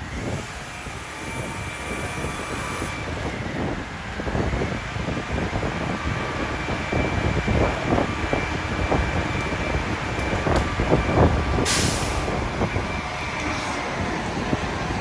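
Heavy diesel vehicle running with a steady whine over a low rumble, wind gusting on the microphone. A short sharp air-brake hiss comes about twelve seconds in.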